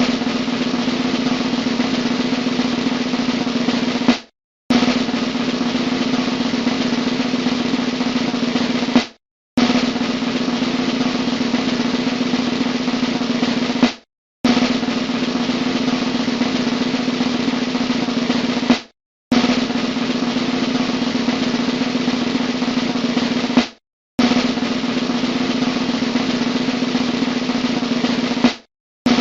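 Drum rolls played one after another: six rolls of about four and a half seconds each, each building slightly and then cutting off suddenly for a brief gap before the next begins.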